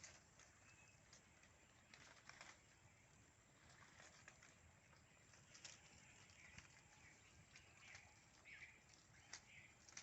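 Near silence: faint scattered clicks and taps, with a few short, faint high chirps in the second half.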